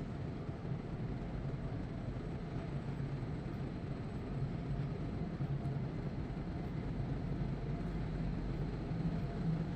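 Steady low hum and rumble inside a concrete tunnel, even throughout with no distinct events.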